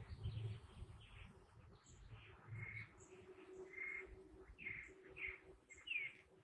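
Birds chirping faintly: a run of short chirps in the second half, the last one a falling note.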